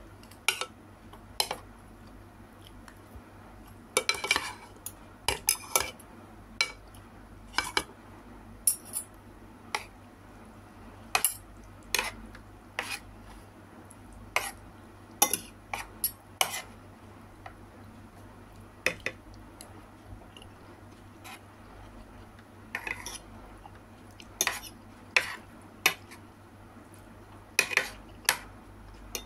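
A metal spoon and fork clinking and scraping against a plate as food is scooped up, in irregular sharp clinks, often in quick clusters, about a second apart.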